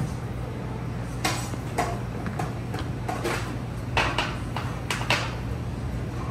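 Light, sharp clinks and taps of utensils against ceramic and metal dishes as food is plated, scattered irregularly, over a steady low hum from the kitchen's extractor hood.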